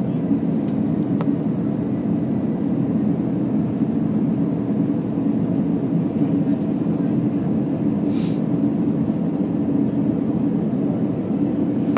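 Steady low drone of an Airbus A320's jet engines and the rushing air, heard inside the cabin on the descent to land, with a brief hiss about eight seconds in.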